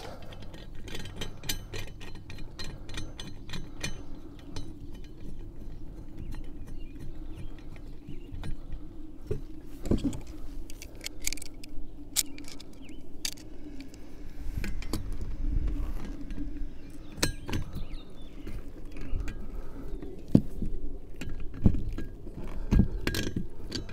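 Brass pipe fittings and a CO2 regulator clinking and clicking as they are handled and tightened onto a CO2 tank valve with tongue-and-groove pliers, over a steady low hum. Several sharper metal clinks come near the end.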